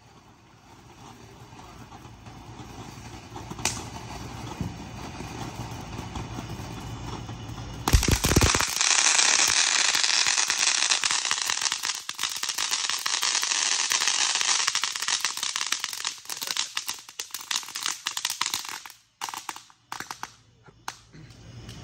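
Ground fountain firework spraying sparks: a hiss that builds, then about eight seconds in a sudden bang and a loud, dense crackling that sputters and dies away near the end.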